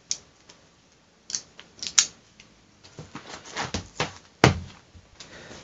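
Irregular metallic clicks and snaps of a Leatherman multitool's tools being folded shut and handled, the sharpest near the end.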